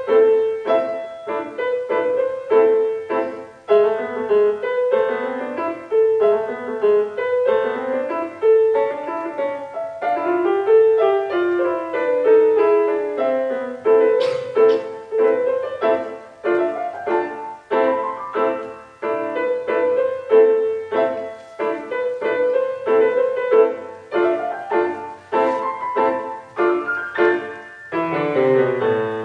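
Grand piano played solo: a steady stream of quick notes, centred in the middle register, ending in a fast descending run near the end.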